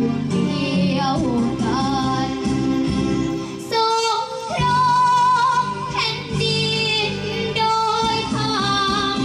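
A young girl singing a Thai luk thung song into a microphone over a recorded backing track, holding long notes about four seconds in and again near the end.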